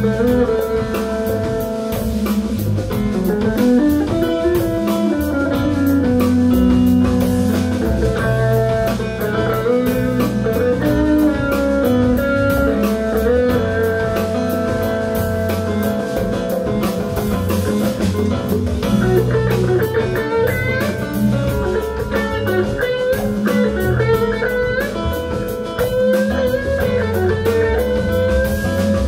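Live band playing an instrumental passage: electric guitar over a steady drum-kit beat and bass, with no singing.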